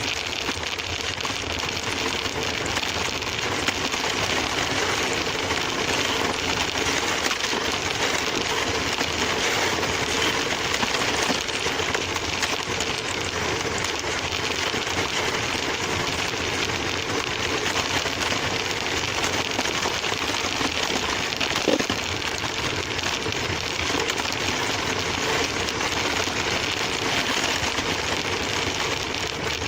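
Remote-control toy car's small electric motor and gears running with its wheels rolling over the ground, heard up close from a camera mounted on the car: a steady buzzing rumble without break.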